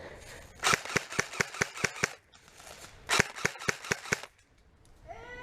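Airsoft guns firing two quick strings of sharp snapping shots, about five a second, each string lasting about a second with a short pause between them.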